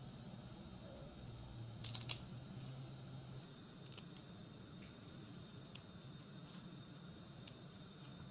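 Faint crisp clicks and rustles of fresh herbs being picked from their stems and dropped into a plastic basin, the loudest a quick double click about two seconds in. A steady low hum underneath stops a little after three seconds.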